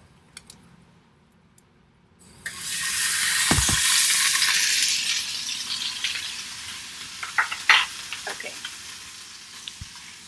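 Top sirloin steak laid into hot, preheated oil in a pan: a sudden loud sizzle breaks out about two seconds in, then slowly settles to a steady quieter sizzle as it fries, with a few knocks and clinks of the pan.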